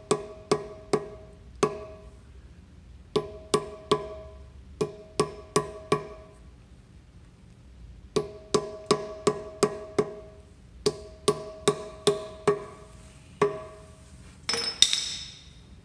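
Hammer tapping a new rope rear main seal in a Jaguar E-Type engine's rear main bearing cap to thin it. The taps come in runs of three to eight, about three to four a second, with pauses between runs. Each blow rings briefly with a metallic note, and a louder clatter comes near the end.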